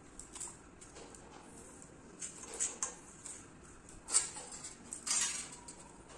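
Raw jackfruit being sliced by drawing it against a fixed upright blade on a wooden base (bonti). There are a few short, irregular cutting and scraping strokes, a sharper one about four seconds in, and a longer slicing stroke a second later.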